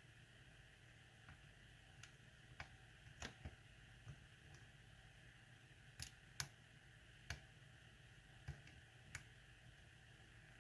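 Faint, irregular small metal clicks of a lock pick and tension wrench working the pins of a lock during single-pin picking, about ten clicks spread unevenly, with a pair a little past halfway.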